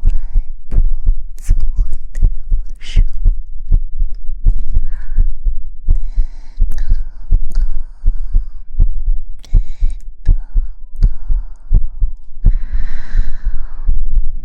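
Close-miked ASMR sounds for lulling to sleep: soft low thumps pulse steadily like a heartbeat, mixed with light pats and taps. There are brief breathy, whisper-like rustles, the clearest near the end.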